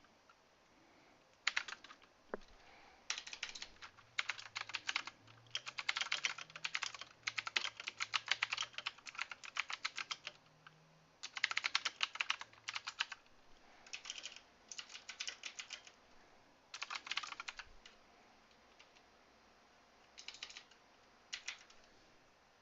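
Typing on a Redragon VARA K551 mechanical keyboard: runs of rapid key clicks in bursts, with short pauses between them. There is a longer gap a little after two-thirds of the way through.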